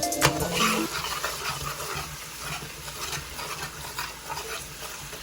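Food sizzling and crackling in hot oil in a frying pan. Background music stops about a second in.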